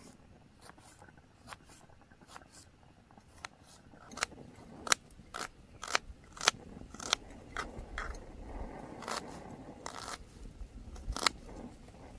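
Kitchen knife cutting tomato and onion on a cutting board: separate sharp knocks of the blade striking the board, a few at first, then a quicker, louder run of chops from about four seconds in.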